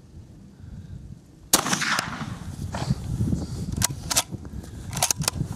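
A single shot from a Savage 220 twenty-gauge bolt-action rifled slug gun, firing a 2¾-inch Remington AccuTip slug, about a second and a half in, ringing out briefly. A few seconds later come short metallic clicks as the bolt is worked to eject the empty hull and chamber the next shell, with wind rumbling on the microphone.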